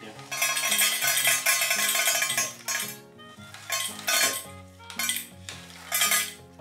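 Dry kibble poured from a bag into a stainless steel dog bowl, rattling and clinking against the metal: one long pour of about two seconds, then three short spurts.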